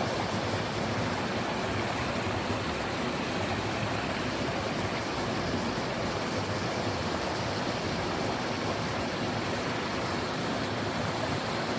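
Twin small waterfalls in a mountain stream, water pouring and splashing in a steady rush.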